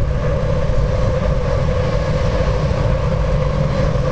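A field of IndyCar engines, 3.5-litre Honda V8s running on ethanol, idling together on pit road after being started: a steady, unbroken engine drone.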